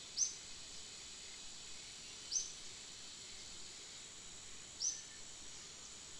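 Forest ambience: a steady high insect drone, with a bird giving a short, sharp, falling high note three times, about two and a half seconds apart.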